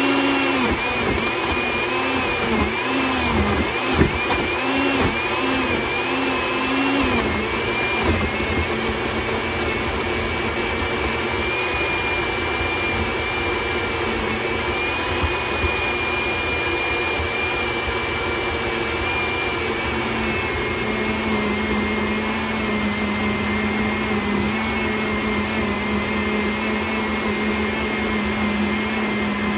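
Countertop blender motor running hard, pureeing frozen fruit with yogurt. Its pitch dips and recovers again and again for the first several seconds as the frozen pieces catch on the blades, then settles to a steady pitch once the mix is smooth.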